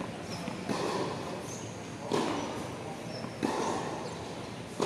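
Tennis ball being hit and bouncing on a hard court: four sharp pops about every second and a half, each ringing briefly under the covered court's roof.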